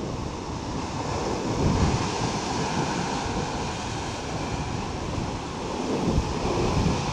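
Rough sea surf breaking and washing over the rocks below, a steady rushing with deep rumble, with wind buffeting the microphone. It swells louder about two seconds in and again near the end.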